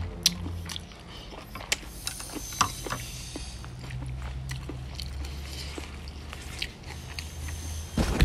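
Close-up eating sounds: chewing and lip-smacking with scattered sharp clicks as goat meat and soup are eaten, over a steady low hum. A louder knock comes near the end.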